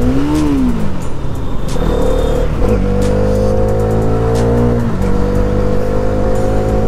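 Hero Karizma XMR 210's 210 cc single-cylinder engine pulling under acceleration on the move. The engine note climbs, drops sharply about five seconds in at an upshift, then climbs again.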